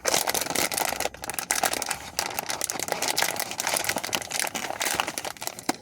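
Plastic candy wrapper crinkling as it is handled, a dense, irregular run of crackles.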